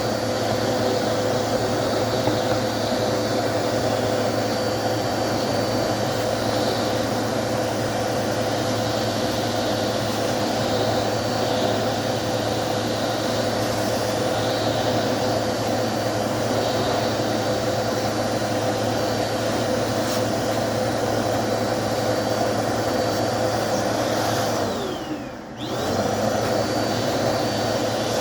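Dirt Devil multi-surface vacuum cleaner running steadily, cleaning out a vacuum filter. Near the end the sound briefly drops and its pitch dips and comes back up.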